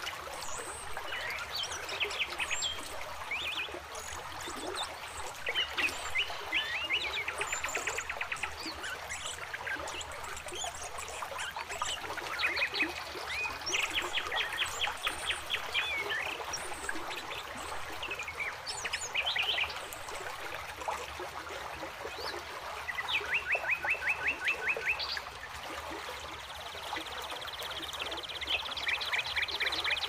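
A forest stream running over rocks, with birds chirping and calling over it. Several fast, even trills come and go, and a high buzzing trill comes in near the end.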